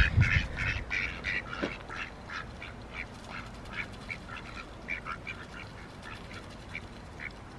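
Ducks giving short, soft quacks while feeding, several a second at first and thinning out toward the end. There is a low thump right at the start.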